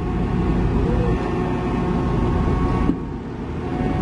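Diesel engine of a Dynapac CA302D padfoot roller running loud and steady as the roller creeps along a self-loader truck's steel ramp, with a short dip in level about three seconds in.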